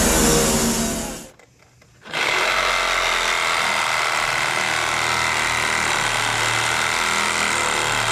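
A motor running cuts off about a second in; after a short pause, a handheld power saw cuts into an oak post, steady and loud, to finish a notch.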